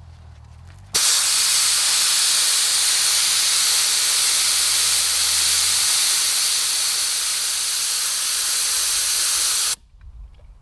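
Air rushing out of a BFGoodrich all-terrain tyre through a tyre deflator on the valve stem: a loud, steady hiss that starts suddenly about a second in and cuts off sharply near the end. The tyre is being aired down from about 40 psi, as is done before driving on beach sand.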